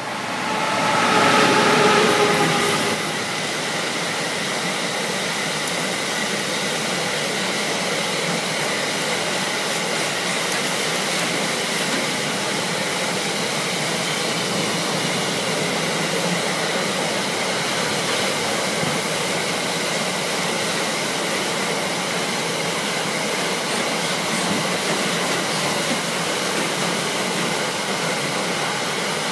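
Siemens Vectron electric locomotive passing at speed, loudest in the first three seconds with a few steady whining tones. Then comes the steady rolling noise of a long train of loaded car-transporter wagons running past on the rails.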